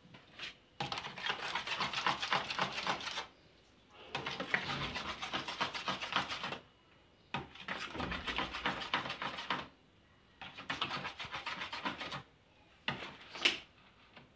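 A spoon beating and scraping a runny cake batter of eggs, sugar and melted margarine in a plastic bowl: rapid strokes in four bursts of a few seconds each with short pauses between, and a brief one near the end.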